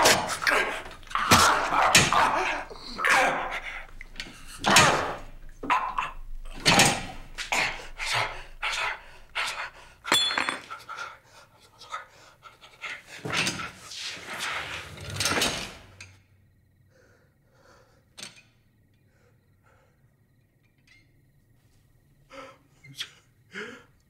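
Two men in a strangling struggle as one is throttled with a bicycle U-lock: loud straining grunts, choking gasps and thumps. Everything stops about two-thirds of the way through, leaving near silence broken by a few faint sobbing breaths near the end.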